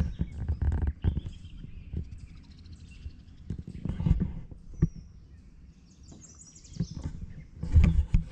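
Birds chirping over uneven low rumbling and scattered knocks from the camera being handled in a small boat.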